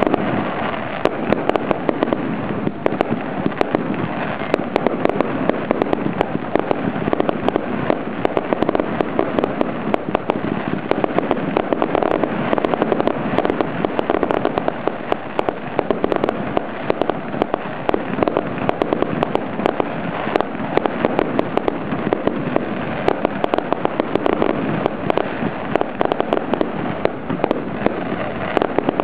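Fireworks display firing from a row at ground level: a dense, unbroken run of sharp cracks and pops, with no pause.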